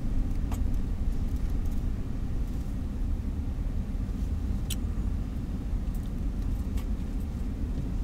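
A car's engine and road noise heard from inside the cabin: a steady low rumble while driving at low speed, with a couple of faint clicks.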